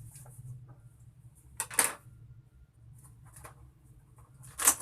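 A sealed cardboard laptop box being worked open by hand: two short scraping, rustling noises, about two seconds in and again near the end, over a low steady hum.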